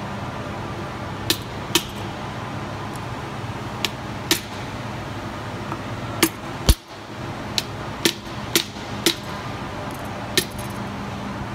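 Hammer blows on an old hub seal laid over a new one, driving the new seal into a bus's rear wheel hub by hand: about eleven sharp strikes, irregular at first and then about two a second for a few blows.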